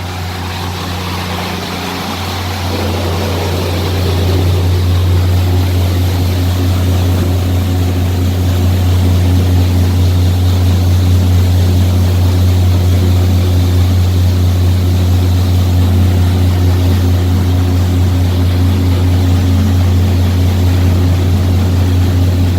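A riverboat's engine droning steadily with a deep hum and a few higher steady tones above it. It grows louder over the first few seconds, then holds.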